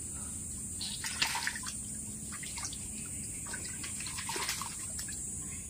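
Hands splashing and sloshing in shallow muddy stream water while grabbing for fish by hand, with many small irregular splashes and drips, over a steady high hiss.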